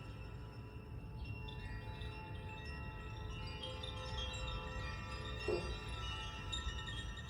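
Chimes ringing: many overlapping high tones that strike one after another and ring on, with a brief rustle about five and a half seconds in.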